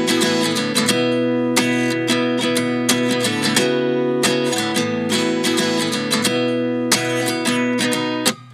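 Music: an acoustic guitar strumming chords in a steady rhythm, dropping out briefly near the end.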